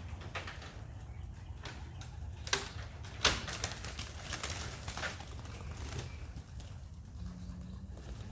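Young pigeons in a loft: a couple of sharp knocks about two and a half and three seconds in with a short run of wing flapping and clatter after them, then a low pigeon coo near the end.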